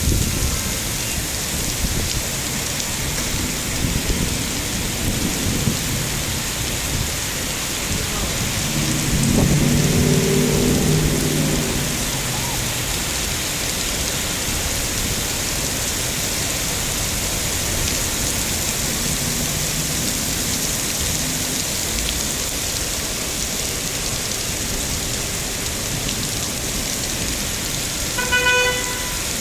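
Steady heavy rain falling. A low pitched drone swells for a few seconds about ten seconds in, and a short beep sounds near the end.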